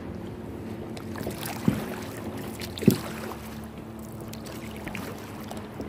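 Kayak paddling on open lake water: water washing against the hull, with two sharp knocks a little over a second apart, the paddle striking the kayak. A steady low engine drone from a motorboat on the lake runs underneath.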